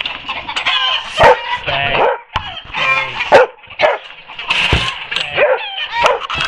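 Canada goose honking in a rapid series of short, loud calls.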